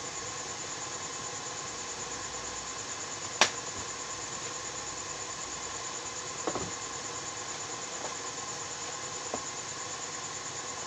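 Workbench handling sounds over a steady electrical hiss with a faint high whine: one sharp click about a third of the way in and a few softer clicks later, as test probes and the amplifier board are handled.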